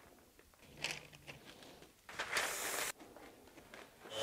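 Brief rustles of kraft paper and plywood parts being shifted by hand on a workbench, twice: a short one about a second in and a longer, louder one near the middle.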